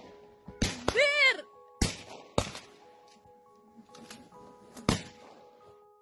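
Gunshots fired into the sky at a flock of migrating birds: about five sharp single shots, irregularly spaced, the first two close together. A short whooping shout follows the second shot, and a soft music bed runs underneath.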